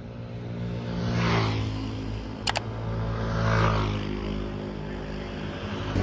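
Vehicle engine running with road noise, swelling twice, with a sharp click about two and a half seconds in.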